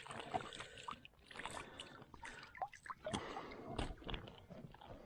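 Light, irregular water splashing and sloshing around a kayak, with small knocks and clicks against the hull.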